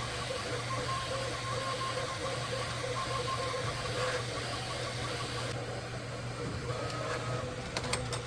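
Bambu Lab 3D printer running, its stepper motors giving a steady hum with a few held tones under a fan hiss, as it lays down the top surface layer of a printed cube. The hiss drops away about two-thirds of the way through, and a few light clicks come near the end.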